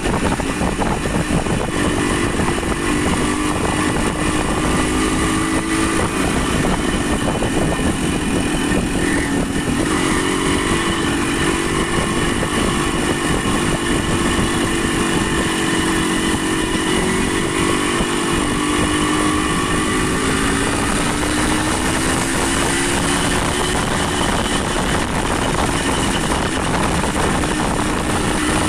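A vehicle engine running steadily, its pitch drifting slowly up and down, under a constant loud rushing noise.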